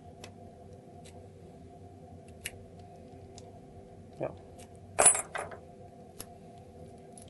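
Key being turned in a BKS round lock cylinder freshly fitted with new pins: light metallic clicks of the key and cylinder, with a sharper metal clack about five seconds in and a second one just after.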